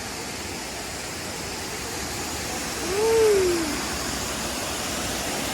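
Waterfall's steady rushing water. About three seconds in there is one short voice-like sound that rises and then falls in pitch.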